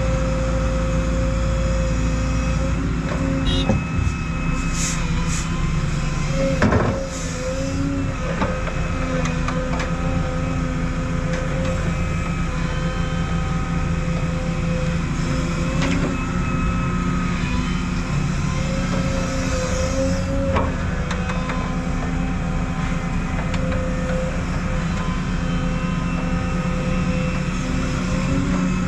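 Excavator's diesel engine running under working load, its pitch shifting as the hydraulics work, with a few knocks and clunks, the loudest about seven seconds in.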